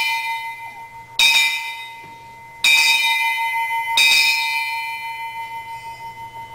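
A ship's bell struck at even intervals of about a second and a half, one clear pitch with bright overtones, each stroke left to ring out. The last stroke fades slowly.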